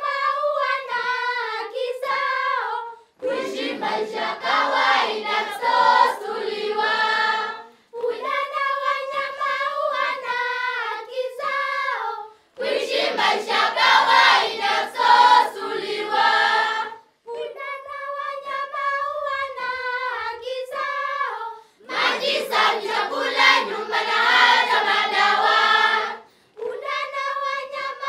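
A group of children singing a song in chorus. Lighter phrases alternate with fuller group passages every four or five seconds, with short breaks between phrases.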